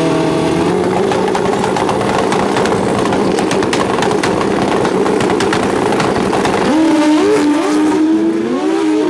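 Two Pro Street drag bikes' inline-four engines held at steady high revs on the starting line with a rapid crackle, then launching about seven seconds in: the engine pitch climbs hard, dropping back at each gear shift.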